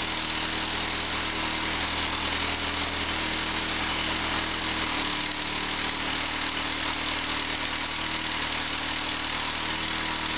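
Massey-Harris Pony tractor's four-cylinder engine idling steadily. Its note shifts slightly about five seconds in.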